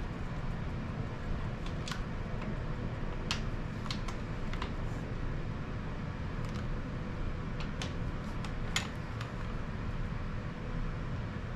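Scattered light clicks and taps of small engine parts being handled and fitted during a timing-set install, over a steady low background hum.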